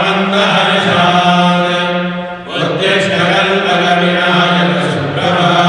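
Voices chanting a mantra on a steady, held pitch, with a short break about two and a half seconds in.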